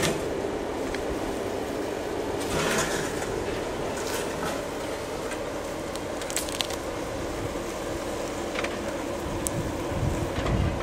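Jeep Wrangler Rubicon's V6 engine running steadily at low speed as it crawls over a rock, with scattered clicks and crackles from rocks and brush under and against the tyres; a low rumble swells near the end.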